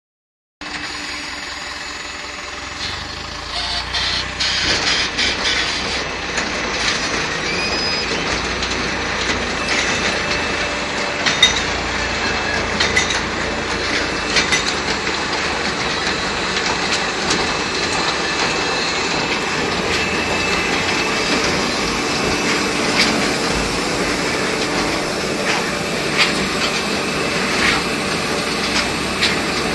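Corn silage packaging machine running: a steady mechanical clatter with scattered sharp clicks and knocks.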